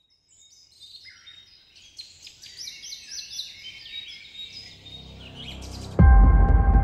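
Forest birdsong: many small birds chirping in quick, overlapping falling notes, growing louder. About six seconds in, a loud, low, throbbing drone with a steady hum cuts in abruptly.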